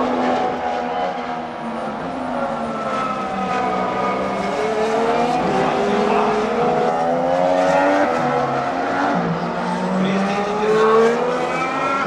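2014 Formula One cars' 1.6-litre V6 turbo engines running on track, several at once, their notes rising and falling as they change revs. The loudest moment comes about eleven seconds in.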